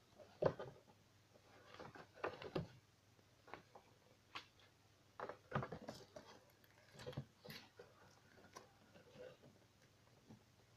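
Wrapped baseball card packs and a cardboard box being handled, with short scattered rustles and light knocks in several clusters.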